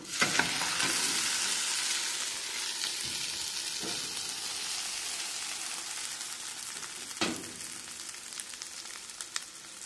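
An omelette sizzling in hot fat as it is slid off a plate back into a frying pan. The sizzle jumps up at once and slowly dies down, with a short knock about seven seconds in.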